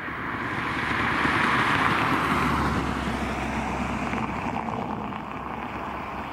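Jet engines of an airliner taxiing past at an airport: a steady hiss that swells over about two seconds and then slowly fades, with a low rumble underneath in the middle.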